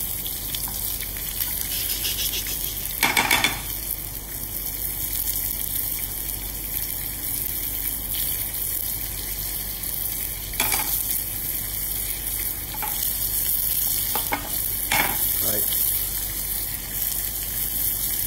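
Sesame-crusted bonito searing in hot sesame oil in a steel frying pan over high heat: a steady sizzle, with a few brief clinks and scrapes of a metal spoon against the pan.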